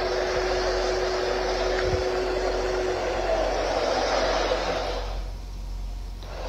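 Steady rushing drone with a low hum, heard from inside a semi-truck's cab at a truck stop with the engines idling. The rushing thins out briefly about five seconds in.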